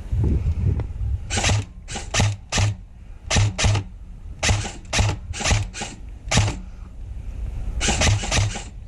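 Airsoft rifle firing single shots in quick, irregular strings, about sixteen in all, each a sharp crack with a low thump. The shooter thinks the shots are falling short of the targets at the edge of range.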